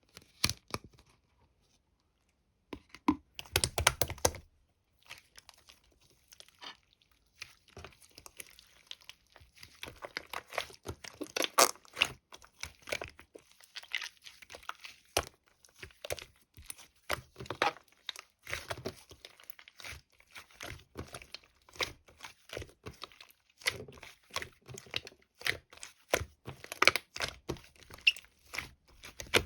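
Close handling noises: irregular crinkling, crackling and tearing, heard as quick clusters of sharp little clicks. There is a louder burst about three to four seconds in, and the clusters become denser from about ten seconds on.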